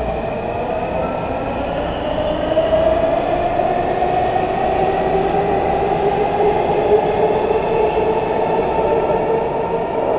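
Washington Metro subway train accelerating out of an underground station, a continuous rail rumble with the traction motors' whine slowly rising in pitch as it picks up speed.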